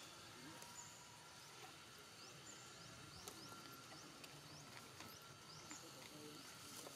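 Near silence: faint outdoor ambience with short, high rising chirps repeating about every half second.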